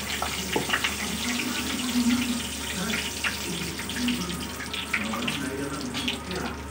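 Hot oil sizzling and crackling steadily as a poori deep-fries in a kadai, pressed with a slotted spatula so that it puffs up.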